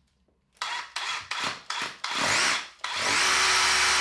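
DeWalt SDS rotary hammer drill boring a 6 mm hole into a brick wall. It starts with about five short trigger bursts, then runs on steadily from a little before the end. This hole lands in a mortar joint, which the driller judges no good.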